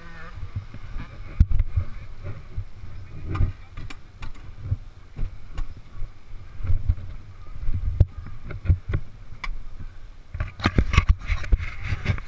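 Irregular low buffeting and knocks on a helmet-mounted camera's microphone with no engine running, and denser sharp rattles and knocks near the end.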